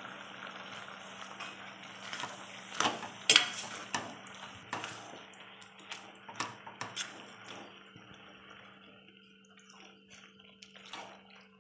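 A ladle stirring and scraping ripe jackfruit pieces cooking in sticky jaggery and grated coconut in a metal pan: irregular wet clicks and scrapes, loudest about three seconds in, growing fainter toward the end. A faint steady hum runs underneath.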